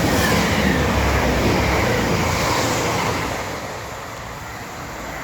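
Class 180 Adelante diesel multiple unit passing at speed under heavy power, its underfloor diesel engines running hard over the rush of wheels on rail. It is loudest for the first three seconds, then fades as the train moves away.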